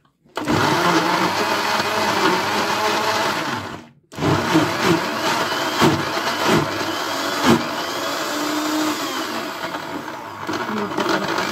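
Moulinex food processor running, grinding boiled dried figs and garlic with olive oil. It starts a moment in, stops briefly a little under four seconds in, then runs again, with a few knocks along the way.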